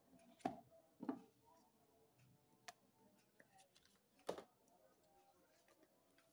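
Cardboard smartphone box being opened by hand and the phone lifted out of its tray: a few short, sharp taps and scrapes of card and plastic, the loudest about half a second, a second and four seconds in, over near silence.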